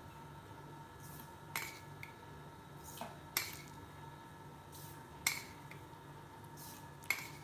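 A metal teaspoon clinking against a container as spoonfuls of sugar are scooped out and tipped into a pan of milk for tea: four sharp clinks about two seconds apart, with lighter ticks between.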